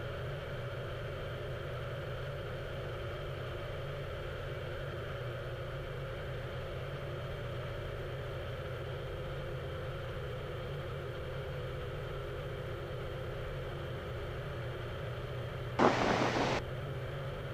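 Steady drone of a Cessna Skylane's single piston engine and propeller in level flight, heard through the cockpit intercom with a constant hiss. About 16 s in, a brief burst of radio noise lasting under a second.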